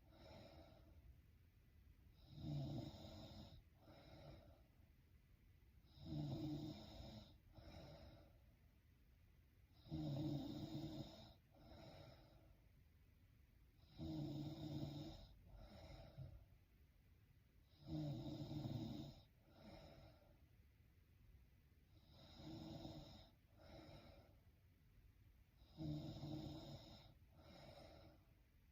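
A woman snoring in her sleep: each loud snore is followed by a shorter, softer one, and the pair repeats about every four seconds.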